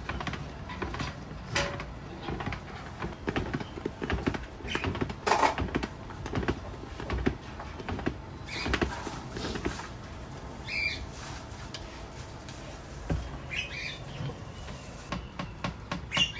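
Irregular clicks, knocks and clatter from work being handled, with two brief high chirps in the middle.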